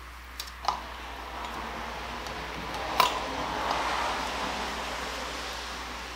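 Muriatic acid and clamp pieces being handled in plastic containers: a soft rushing hiss that swells for a few seconds and fades, with a couple of light clicks near the start and one sharper knock about three seconds in.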